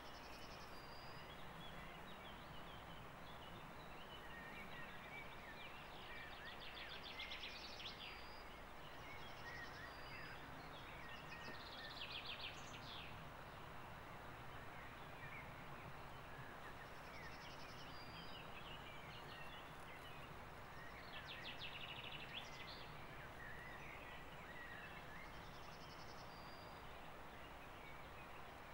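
Faint birdsong: short high whistled notes and quick trills repeating every few seconds, over a steady rush of flowing river water.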